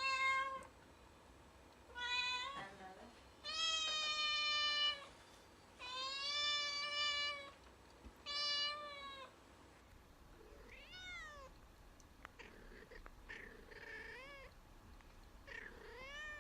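A cat meowing. Five loud, drawn-out meows come in the first nine seconds, then fainter, quicker calls that rise and fall in pitch.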